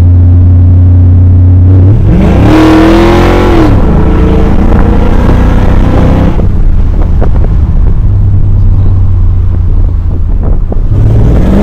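Pontiac GTO's LS1 V8 exhaust through Spintech mufflers, heard from inside a following car. It drones steadily, climbs in pitch as it accelerates about two seconds in, then drops back and settles into a steady drone. Near the end it starts climbing again.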